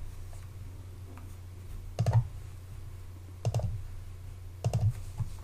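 Clicking at a computer: three short clusters of clicks, about two, three and a half, and five seconds in, over a low steady hum.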